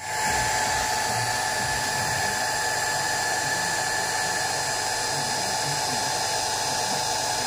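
Small 18 V electric motor and repurposed CPU cooler fan of a homemade H0-scale vacuum-cleaner wagon running with a steady high whine.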